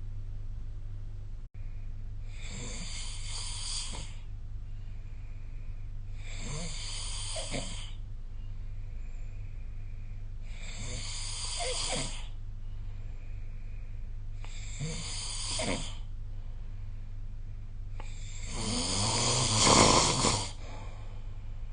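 A sleeping person snoring, five snores coming about every four seconds, the last one longest and loudest.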